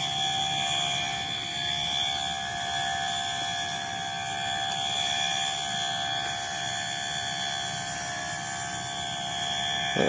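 Steady chorus of night insects in a rice paddy, several unbroken high-pitched tones held together.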